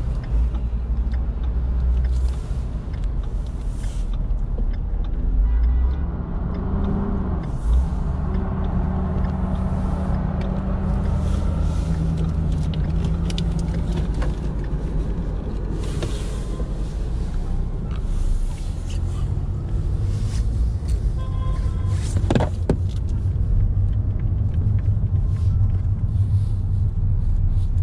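Steady low rumble of a car driving through city traffic, with other vehicles passing. There is a brief sharp knock late on.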